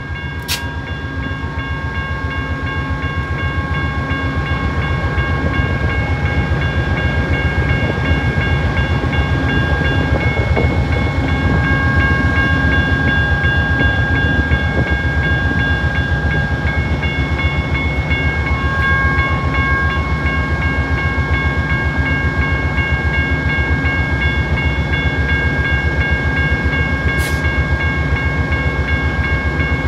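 Amtrak GE Genesis P42DC diesel locomotive standing close by with its engine running: a dense, pulsing low rumble under several steady high whines, growing louder over the first several seconds and then holding steady.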